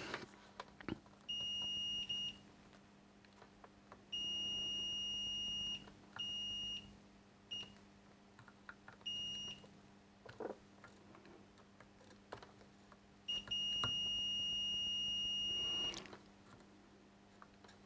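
Fluke digital multimeter's continuity beeper sounding as the test probes touch points on an amplifier circuit board: six steady high-pitched beeps of varying length, the longest about two and a half seconds near the end, each one signalling a short or very low resistance between the probe tips. Faint ticks of the probe tips on the board between beeps.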